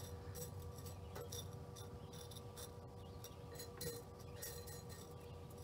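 Light clicking and clinking of small stones of a gravelly rock mix shifting against each other as fingers press them into a pot, with one louder clink about four seconds in.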